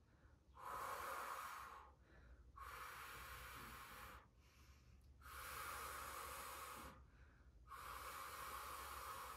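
A person breathing hard and audibly while holding a side plank: four long breaths of about a second and a half each, with short pauses between.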